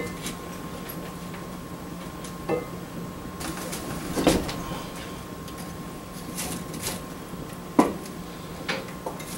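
Scattered knocks and clunks of cookware being handled and set at a hearth fire, a few seconds apart with the sharpest near the end, over a steady faint hum.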